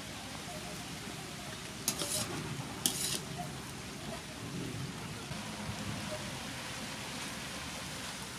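Steady hiss of water boiling in a wok, with two short, sharp noises about two and three seconds in.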